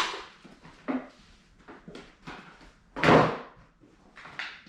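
Packaged toys and cardboard being handled and dropped onto a pile: a few short knocks, with one loud thud about three seconds in.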